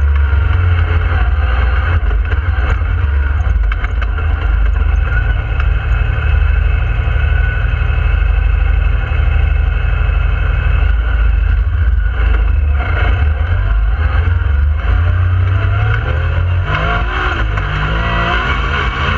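Yamaha YXZ1000R side-by-side's three-cylinder engine heard from inside the open cab, driven hard and revving up and down as it changes gear, with the revs climbing in steps near the end. Wind and tyre noise on gravel run under it.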